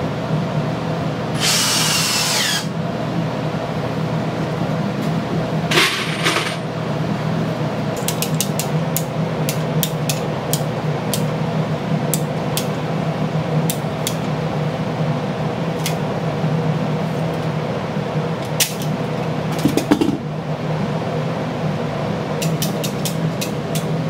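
Hand tools being worked on plastic plumbing pipe: sharp clicks and a few short scraping rattles, with a quick run of even clicks near the end. A steady low hum runs underneath.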